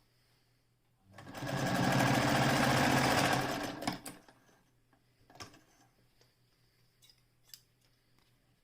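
Singer 99K electric sewing machine running a burst of stitching. It speeds up, holds a fast, even stitch rhythm for about two seconds, then slows to a stop. A few light clicks follow.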